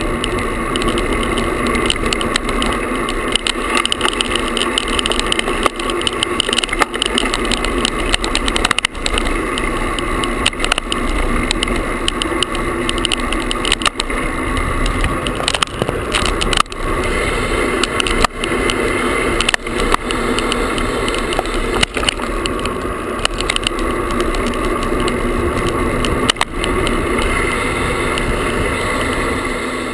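Vibrating noise from a GoPro camera tied to a road bike's handlebars with a shoelace, shaking and rattling against the bars as the bike is ridden: a steady buzz with frequent short clicks.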